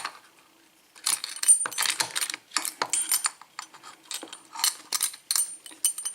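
Metal clinking and rattling of padlocks and small metal parts being handled: a quick, irregular run of sharp clicks with a high ring, starting about a second in.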